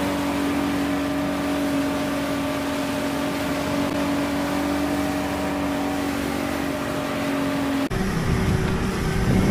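Boat motor running steadily underway, a constant hum over a steady rushing noise of wind and water. About eight seconds in, the sound cuts abruptly to a louder low rumble.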